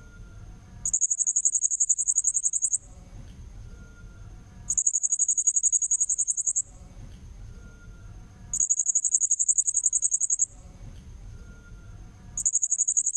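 Lure recording of blue-crowned hanging parrot (serindit) calls: very high, shrill, rapidly pulsed trills lasting about two seconds each. They repeat at even spacing about every four seconds, four times, the last starting near the end.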